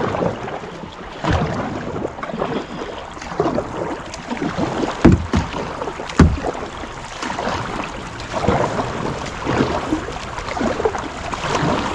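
Kayak paddle strokes dipping and splashing in lake water, uneven and about a second apart, with a few louder low thumps near the middle.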